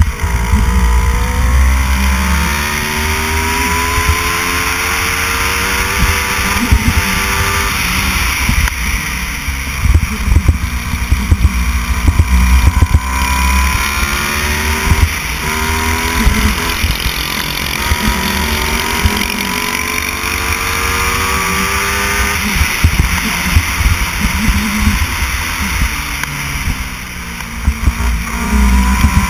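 Racing kart engine under way, pulling hard. Its pitch climbs over several seconds as it accelerates and then falls back as the driver lifts for corners, again and again.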